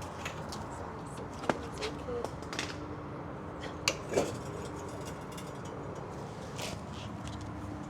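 A few sharp metallic clicks and clinks, four or so spread over a few seconds, over a low steady background as the car is let down off a jack.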